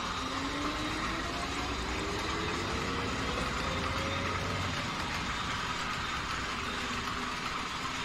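Model train running on the layout, with a whine that rises slowly in pitch over the first few seconds as it gathers speed, over a steady running hum.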